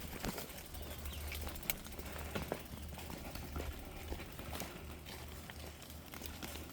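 Faint, irregular footsteps and small clicks along a trail, over a steady low rumble.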